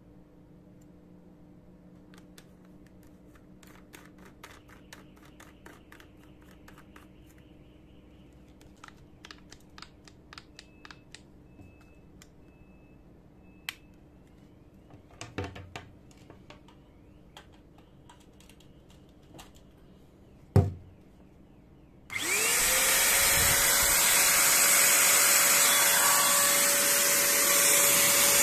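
Small plastic clicks and knocks as the parts of a Total electric paint sprayer gun are handled and fitted. About three-quarters of the way in its motor switches on suddenly and runs loud and steady, a whine that rises briefly as it spins up and then holds, over a strong rush of air from the nozzle.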